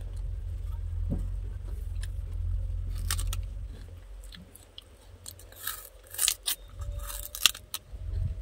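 A person biting into and chewing a raw sugarcane stalk: a series of sharp, fibrous crunches, most of them in the second half. A low steady rumble sits underneath for the first half and fades out.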